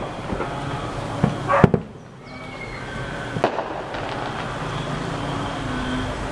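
Fireworks going off: a few sharp bangs, the loudest about a second and a half in and another about three and a half seconds in, over steady background noise.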